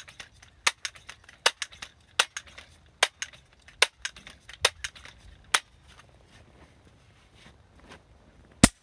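Gamo M4 TAC .177 multi-pump pellet rifle being pumped: a sharp click with each pump stroke, a little under a second apart, finishing a ten-pump charge. After a few quiet seconds comes one loud sharp shot as the pellet is fired.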